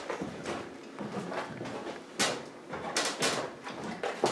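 A few sharp knocks and shuffling: footsteps and handling on wooden basement stairs in the dark.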